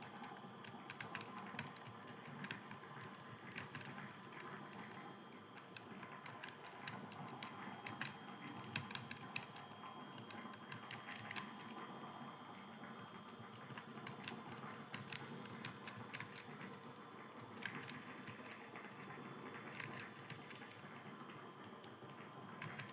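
Typing on a computer keyboard: irregular, fast key clicks, several a second, during a Hindi typing speed test.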